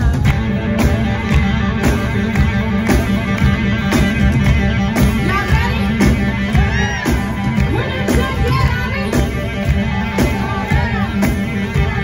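Live blues-rock band playing loudly: electric guitar and drums on a steady beat, with a woman singing.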